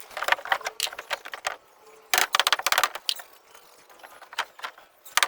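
Small hard parts clicking and rattling while something is handled for repair, with a run of rapid clicks about two seconds in and another near the end.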